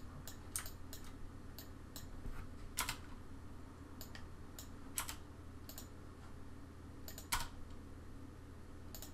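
Irregular clicking of a computer mouse and keyboard, about a dozen clicks with a few louder ones, over a steady low hum.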